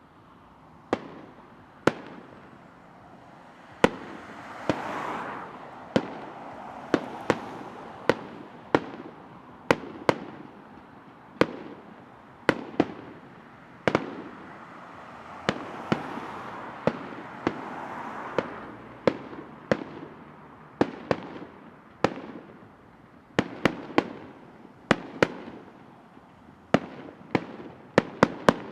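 Fireworks display: a steady run of sharp bangs, about one to two a second, over a rushing hiss that swells twice.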